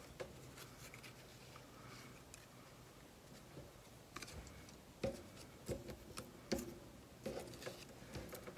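Quiet handling of paper craft pieces: faint rustling, with several light taps and clicks from about halfway in.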